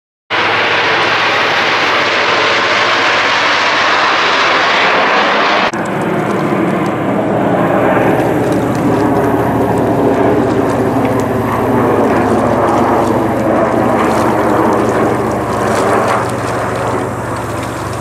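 Jet noise from a formation of Canadair CT-114 Tutor jets flying overhead: a steady, loud rushing sound. Its character changes abruptly about six seconds in, becoming duller with a steady low drone underneath.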